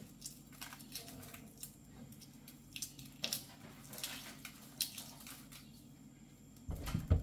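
Shell being cracked and picked off a hard-boiled egg by hand: faint, scattered small crackles and clicks, with a louder bump near the end.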